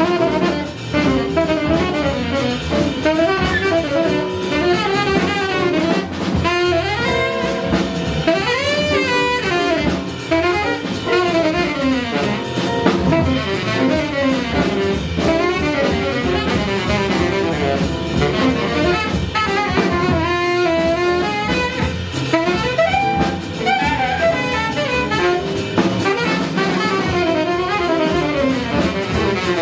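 Live jazz band playing: a saxophone leads with a winding line of quick notes over piano, bass and a drum kit.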